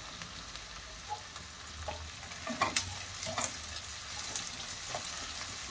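Sliced onions with ginger and garlic pieces sizzling softly in hot oil in a kadhai. A wooden spatula stirs them, knocking and scraping against the pan a few times.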